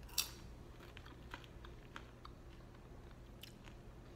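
A person chewing chocolate-coated candy popcorn, faint, with one sharper bite click about a quarter second in and small scattered clicks after.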